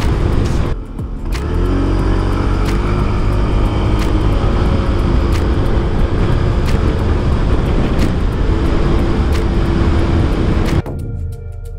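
Honda PCX e:HEV 125 scooter's single-cylinder engine accelerating hard, its note rising and then holding at speed, under heavy wind rush on the handlebar-mounted camera. The sound cuts off sharply near the end.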